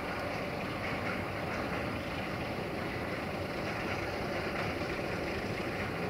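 Electroputere 060-DA (ST43) diesel-electric locomotive's Sulzer V12 diesel engine running steadily under power while hauling a freight train.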